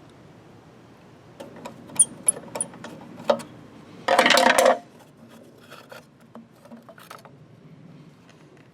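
Small metal parts and hand tools clinking: a run of light metallic clicks, then a short rattling burst under a second long, the loudest moment, followed by softer scattered clicks.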